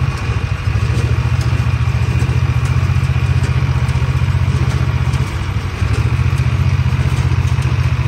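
John Deere tractor's diesel engine running steadily while it pulls a small square baler through the windrow, with faint regular clatter from the baler.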